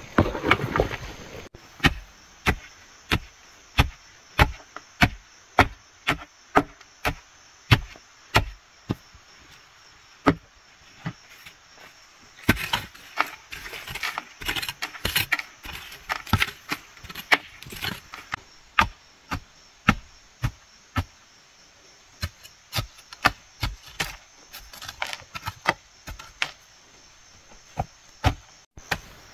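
Dull, rhythmic thuds of a long wooden pole being driven down into loose earth, tamping the soil around a freshly set bamboo post. Roughly one strike every second, pausing briefly past the middle, with insects chirring steadily underneath.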